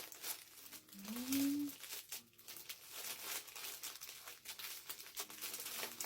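Packaging being handled and unwrapped: plastic wrap and cardboard crinkling and rustling in many short strokes. A brief rising hum about a second in stands out above the rustling.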